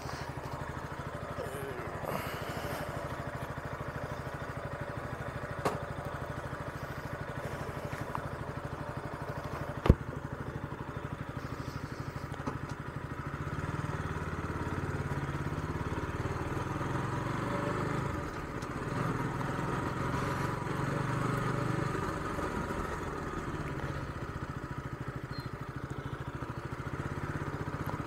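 KTM RC motorcycle's single-cylinder engine running at low speed, heard through a helmet-mounted action camera's external lavalier mic. The engine grows louder about halfway through as the bike gets under way. There is a faint click about six seconds in and a sharp click about ten seconds in.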